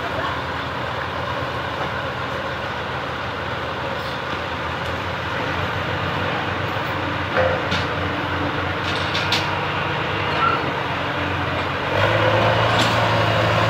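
Diesel engine of a P&H crawler crane running steadily, with a few sharp knocks; about twelve seconds in the engine gets louder.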